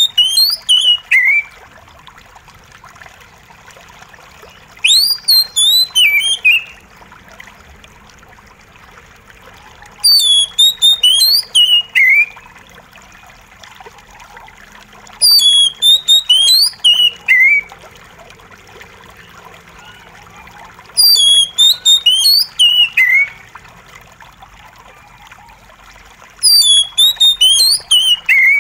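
Oriental magpie-robin singing short phrases about every five seconds, each a quick run of high notes falling in pitch, over a steady trickle of running water.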